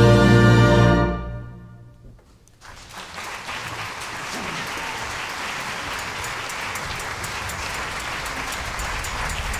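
A full orchestra's final sustained chord ending the opera, released about a second in and dying away in the hall's reverberation. Audience applause then breaks out and builds as steady clapping.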